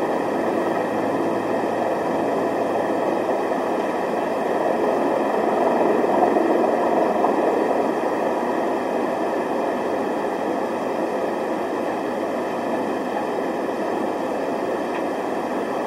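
Steady rushing outdoor noise with no distinct events, swelling slightly about six seconds in.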